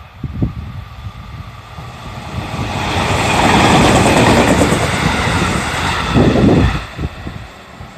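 JR Central 311 series electric multiple unit passing over a level crossing. Its rumble builds from about two seconds in, stays loud for about four seconds, then drops off suddenly near the end.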